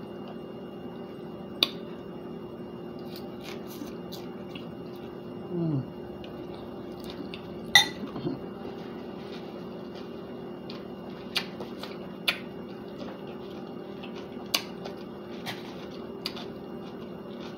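Metal fork clinking against a glass salad bowl as salad is eaten: scattered sharp clinks every second or two, the loudest about eight seconds in, over a steady background hum. Two short low hums from the eater come near the middle.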